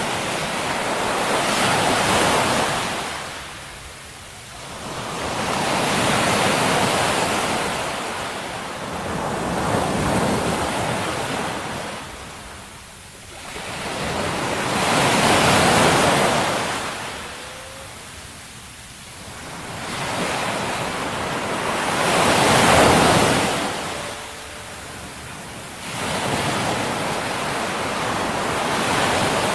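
Sea waves washing in and drawing back, in long hissing surges that swell and fade every four to seven seconds.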